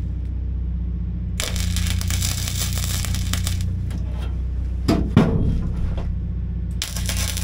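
MIG welder tacking a sheet-steel patch into a rusted truck floor pan: a burst of crackling arc of about two seconds starting after a second, a few short crackles and one loud metal knock about five seconds in, and the arc crackling again near the end. A steady low hum runs underneath.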